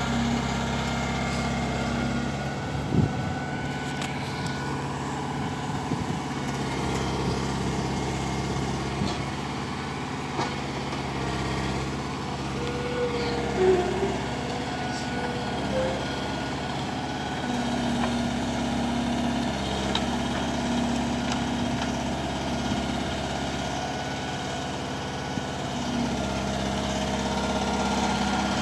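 Atlas excavator's diesel engine running steadily, with two sharp knocks, one about three seconds in and another near the middle.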